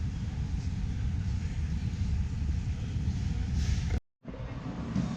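Steady low rumbling hall ambience of a crowded exhibition hall, with indistinct crowd chatter. The sound drops out abruptly for a moment about four seconds in, at an edit, then resumes.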